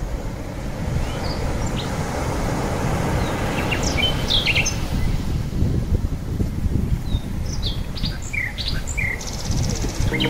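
Small birds chirping in scattered short calls over a steady low rushing of ocean surf.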